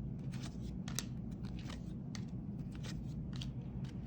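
Trading cards being handled and flipped through one by one: a scatter of small, sharp clicks and slides of card stock over a low, steady hum.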